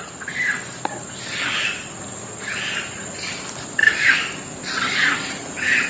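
A dog barking in the distance as it passes by, short barks coming about once a second.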